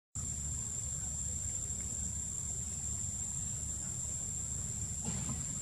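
Steady high-pitched drone of forest insects, one unbroken tone, over a low rumble.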